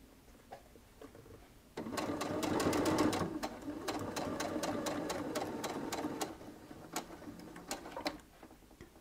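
Domestic sewing machine sewing a straight stitch through a terry towel and fabric binding. It starts about two seconds in with a steady motor hum and rapid, even needle clatter. It stops about six seconds in, and a few single clicks follow.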